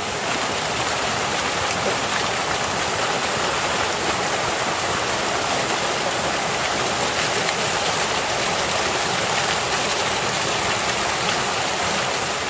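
Small waterfall pouring over rocks into a shallow pool: a steady, unbroken rush of falling water.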